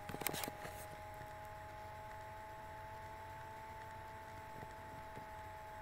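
A short cluster of clicks and knocks in the first half-second, then a steady faint electrical whine of two tones over background hiss. A couple of faint ticks come near the end.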